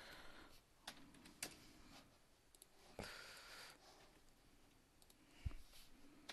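Near silence broken by a handful of faint, scattered computer mouse clicks.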